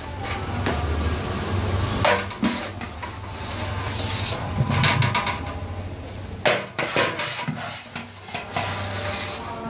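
Irregular knocks and clatter of kitchen utensils during large-batch biryani cooking, over a low steady hum.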